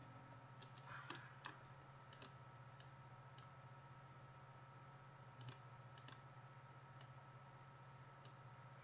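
Faint, scattered clicks of a computer mouse, about a dozen spread unevenly, over a low steady hum.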